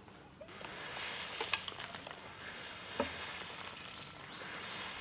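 Straw broom sweeping dry leaves and twigs across bare dirt: repeated scratchy swishes starting about half a second in, with a couple of sharper clicks among them.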